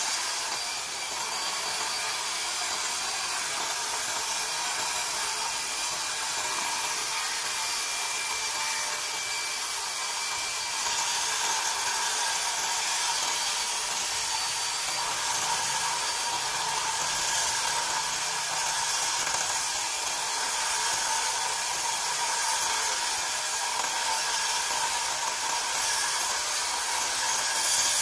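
Electric 220 V diamond-chain concrete saw running steadily as it cuts wet through a concrete post: a continuous whine with a grinding hiss.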